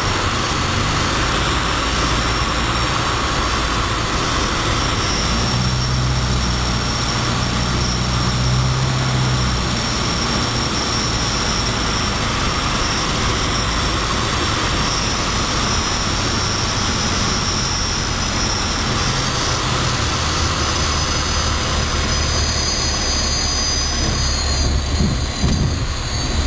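Grob G115's piston engine and propeller droning steadily, heard from inside the cockpit together with airflow noise, during the approach and landing. The engine note strengthens for a few seconds about six seconds in and changes again near the end.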